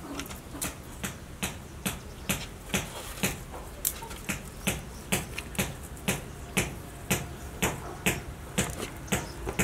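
Crested porcupine chewing hard food, sharp crunches coming evenly about two a second.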